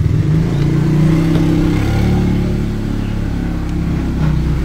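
A motor vehicle engine running steadily, its pitch rising and falling a little.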